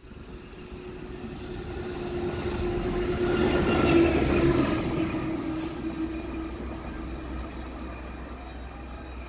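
Freightliner Class 66 diesel locomotive passing at speed. A rushing pass-by with a steady engine note, building to its loudest about four seconds in and then fading away.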